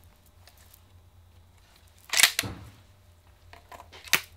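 Beretta A400 Upland semi-automatic shotgun being loaded by hand: one loud metallic clack of the action about two seconds in, then a few lighter clicks near the end as a shell is worked into the magazine tube.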